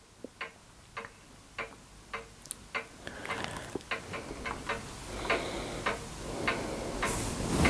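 Regular mechanical ticking, about two ticks a second. From about three seconds in it is joined by a rising rushing noise and quicker clicks.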